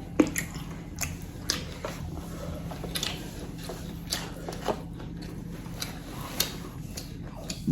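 Chewing and biting chicken close to the microphone, with sharp wet mouth clicks and smacks at irregular intervals over a steady low hum.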